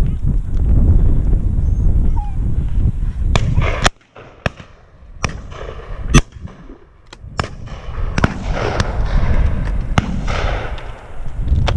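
Shotgun shots: one close, loud shot about six seconds in, and several fainter shots from other guns scattered through, some echoing. Wind rumbles on the microphone until it drops away abruptly about four seconds in.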